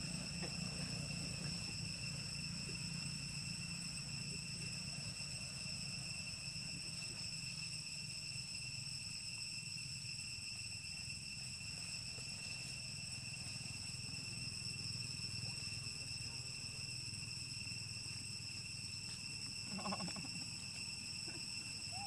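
Insects shrilling in one steady, unbroken high drone, over a low steady hum.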